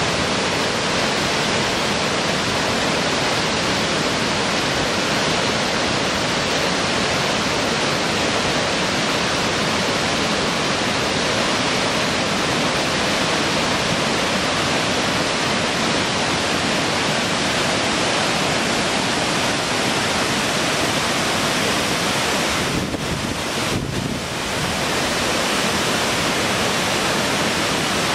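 Steady rushing of river rapids and a waterfall, an even wash of white water with no breaks, dipping briefly about 23 seconds in.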